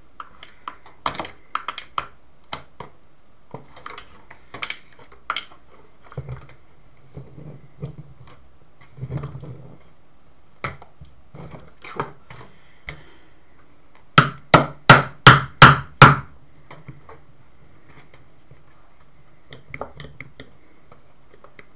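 Hands working at a plastic electric-fan blade and its superglued hub nut, trying to break it free: scattered clicks and knocks, then a quick run of about seven loud knocks a little past the middle.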